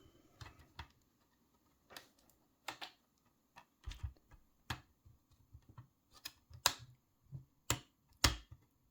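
Irregular sharp clicks and taps of small model parts being handled, as a connector is worked back and forth and pushed into a Stargate model's gate segment until it seats. The loudest clicks come near the end.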